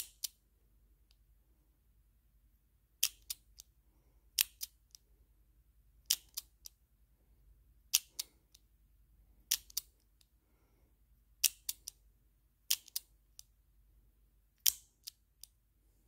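American Lock dial combination padlock being worked by hand: sharp metal clacks in groups of two or three about every one and a half to two seconds, as the shackle is tugged against its catch between turns of the dial while combinations are tried.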